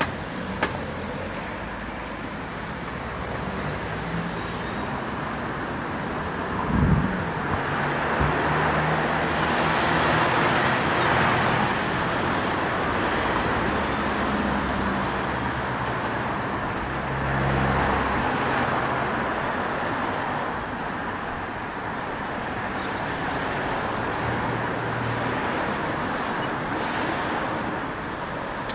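Road traffic, with vehicles passing one after another, the noise swelling as each goes by, and a short thump about seven seconds in.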